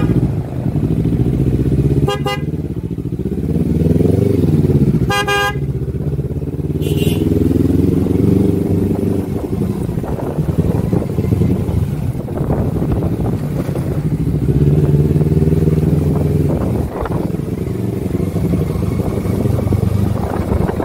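Kawasaki Versys 250 parallel-twin engine running under way at low speed, its note rising and falling as the throttle opens and closes. Short vehicle horn honks sound three times in the first six seconds.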